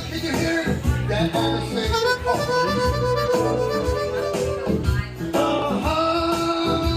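Blues music: a harmonica holding and bending long notes over a repeating guitar riff and a steady beat, with one long note sliding down in pitch about halfway through.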